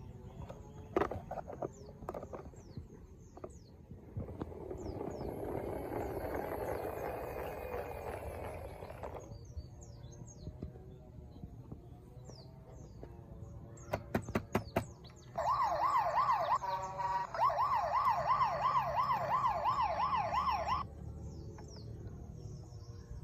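Electronic siren from a battery-powered toy police car: a fast warbling wail that starts about 15 seconds in and cuts off suddenly about five seconds later, the loudest sound here. Before it come a softer rushing noise and a few sharp clicks.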